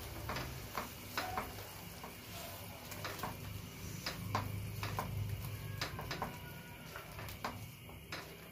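Silicone spatula stirring minced meat, onions and spices in a nonstick frying pan, with scattered soft taps and scrapes against the pan over a low sizzle of the frying mixture.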